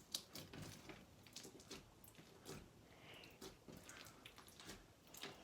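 Crunchy cube slime (clear glue slime with cubes) being squished and played with by hand, giving faint, irregular crackles and squishes.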